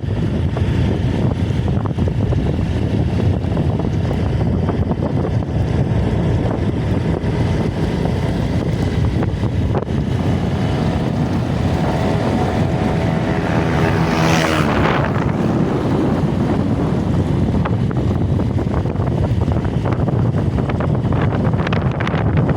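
Steady low rumbling noise, like wind and road noise. Layered over it, a strange pitched sound of several tones swells from about twelve seconds in, peaks sharply with a brief rushing whoosh around fourteen to fifteen seconds, then fades.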